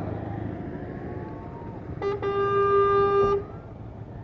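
A vehicle engine runs with a steady low rumble, and about two seconds in a horn sounds one steady blast lasting just over a second.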